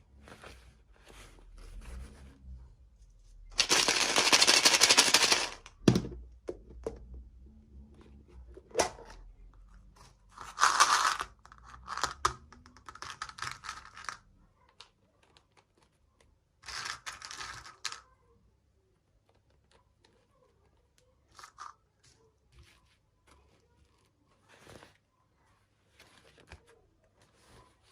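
Packaging being torn open and crinkled by hand, in several rustling bursts with small clicks. The longest and loudest tear is about four seconds in and lasts a couple of seconds; the handling fades to faint ticks near the end.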